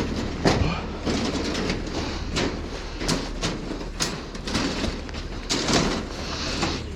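Steel rebar clanking and knocking irregularly as bars are handled and placed, over a steady low machine hum.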